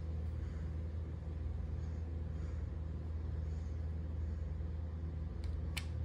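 Hunter Lantern Bay 54-inch ceiling fan running with a steady low hum. Near the end come two short sharp clicks as a button on its remote control is pressed.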